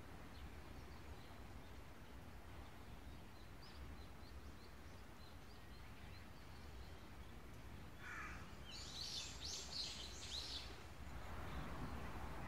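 Quiet outdoor ambience with a steady faint low rumble and faint scattered bird chirps; about eight seconds in, a louder cluster of bird calls runs for about three seconds.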